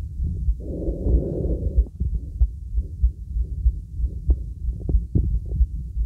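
Neck pulse and breathing heard through a stethoscope: repeated low thumps of the pulse, with one breath near the start lasting about a second.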